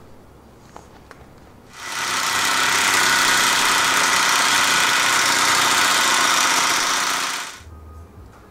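Cordless impact wrench hammering steadily on a rear control-arm bolt at the axle-housing bracket. It starts about two seconds in and cuts off after about six seconds.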